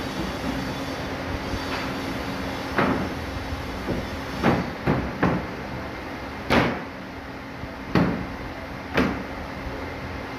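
Solid wooden bed panel knocking against the bed frame as it is pressed and patted down into place: about seven sharp wooden knocks at uneven intervals, over a steady background hum.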